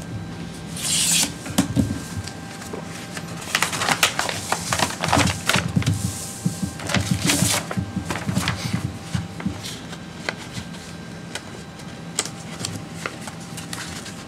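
Sheets of paper rustling and being handled on a desk as a bid is opened and looked over, with light knocks and clicks: a burst about a second in, a busier stretch in the middle, quieter near the end. A faint steady hum lies underneath.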